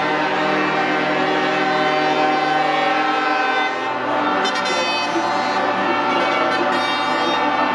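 Truck air horns sounding together in long, steady chords, with the chord changing about four seconds in.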